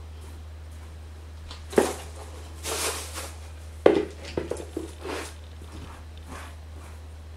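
Hands gathering cut crochet hair off a hard floor: a few sharp knocks and scuffs about two and four seconds in, with rustling between them, over a steady low hum.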